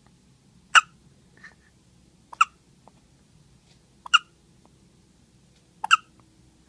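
A two-day-old newborn hiccupping after a feed: four short, sharp hiccups, each about a second and three-quarters after the last.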